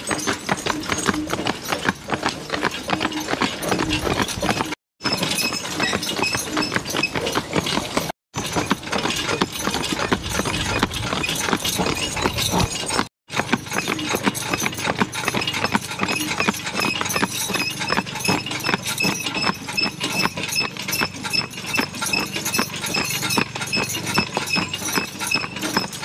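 Hooves of a team of Belgian draft horses clip-clopping steadily on a paved road as they pull a wagon. The sound drops out three times for an instant.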